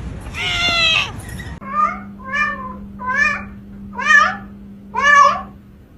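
A house cat meowing: one long, loud meow, then a run of about five short, insistent meows, roughly one a second.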